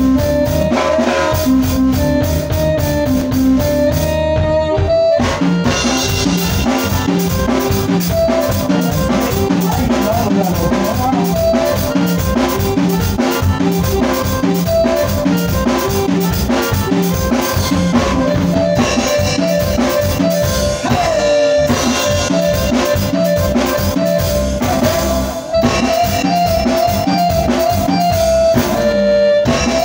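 A band playing an instrumental passage through a PA: an electronic keyboard holds a sustained melody over a steady drum-kit beat, and the full beat comes in about five seconds in.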